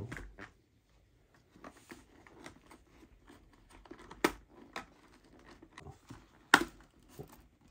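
Handling noise from pressing a Bluetooth intercom headset speaker and its cord in under a full-face helmet's foam liner: soft rustling and scraping of fabric and foam. Two sharp clicks stand out, one about halfway through and a louder one near the end.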